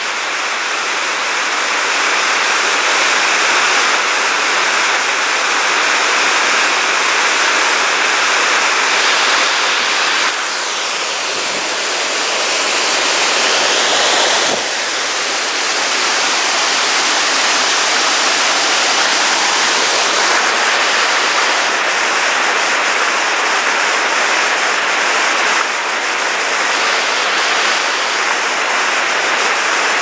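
Steady loud rush of the East Lyn River, white water pouring over a waterfall and running fast over rocks.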